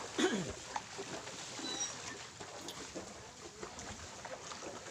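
Faint distant voices over a steady outdoor background hiss, with one short call dropping sharply in pitch just after the start.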